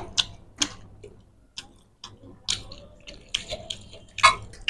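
Eating sounds: irregular wet clicks and smacks from chewing and from fingers mixing rice with fish curry. There is a short lull a little past the first second, and the loudest click comes near the end.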